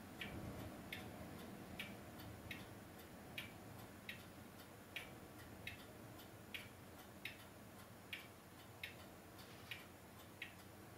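Faint, regular ticking, about five ticks every four seconds in an even tick-tock rhythm, over a low hum and hiss.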